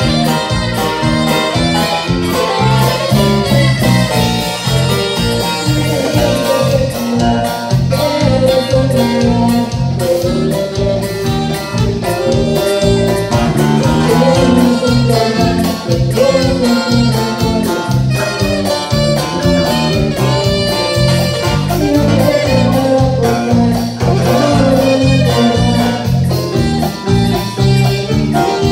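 Live norteño band music: a Gabbanelli button accordion playing the lead over strummed guitar, with a steady, even beat in the low end.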